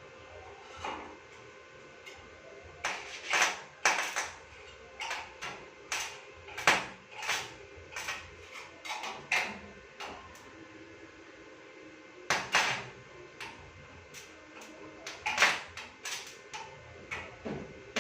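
Irregular sharp knocks and taps coming in clusters, some ringing briefly.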